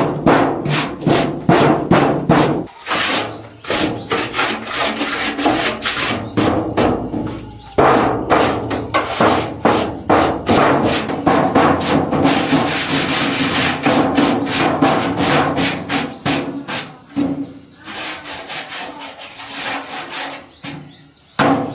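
Rapid back-and-forth abrasive rubbing strokes by hand, about three to four a second, with a couple of short breaks. The strokes thin out over the last few seconds.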